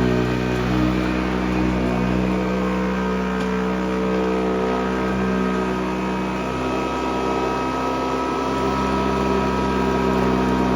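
Sanitaire SC684 commercial upright vacuum cleaner running, a steady motor hum and whine, its pitch wavering briefly a little past halfway before settling again.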